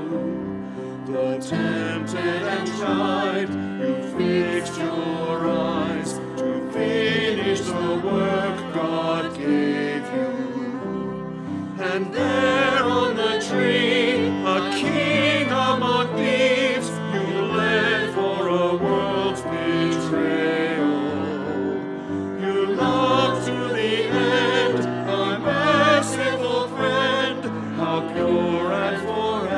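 Voices singing with instrumental accompaniment, holding long notes with vibrato over sustained lower notes.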